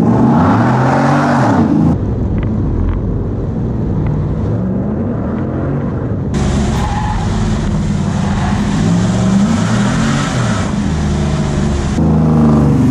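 Swapped-in 5.7-litre Hemi V8 of a 1988 Dodge Ram D150 pickup revving up and down, over and over, as it is driven hard through an autocross course, with some tire squeal. The sound jumps abruptly a few times as the shots change.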